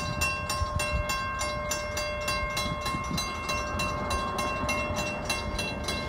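Railroad grade-crossing warning bell ringing with rapid, even strikes and a steady ringing tone, signalling an approaching train. A low rumble runs underneath.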